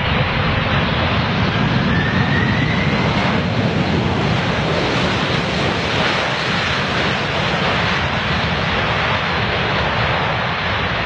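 Boeing 747-400 freighter's four jet engines running steadily at takeoff thrust during the takeoff roll. A faint rising whine sounds in the first few seconds.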